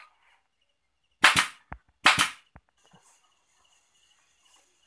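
Pneumatic air stapler firing into grille cloth on an MDF board: two sharp shots about a second apart, with a smaller click between them.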